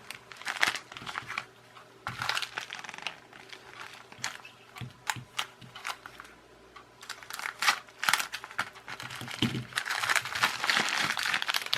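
Plastic postal packet being opened and handled by hand: irregular crinkling and crackling with light clicks, getting busier and denser near the end.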